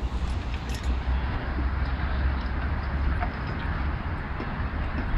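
Wind buffeting the microphone with a steady low rumble and hiss, a few faint clicks in it.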